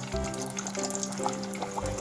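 Background music with held notes over the bubbling and crackling of hot canola oil frying in a stainless steel pot.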